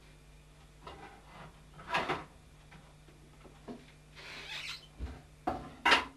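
Scattered knocks, scrapes and rubbing of things being handled at a kitchen counter, the loudest about two seconds in and again near the end, over a low steady hum.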